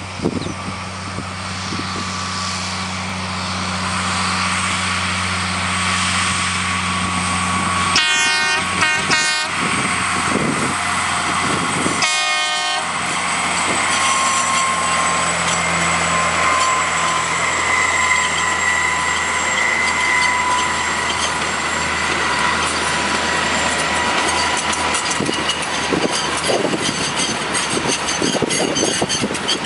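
EM Baldwin diesel cane locomotive running as it approaches hauling a rake of loaded cane bins, sounding its horn twice, about eight and twelve seconds in. As it passes, a thin high squeal runs for several seconds, and near the end the bins' wheels click over the rail joints.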